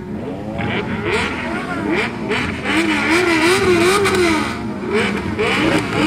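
A large group of motorcycles running close together, several engines revving up and down. Near the middle, one engine revs up and down quickly four or five times.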